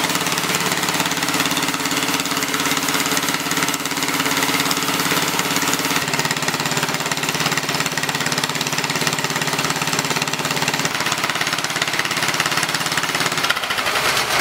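Honda-powered DeWalt engine-driven air compressor running, the small engine and pump going with a steady fast pulsing. The tone shifts about six seconds in and again near eleven seconds, and the run dies down shortly before the end.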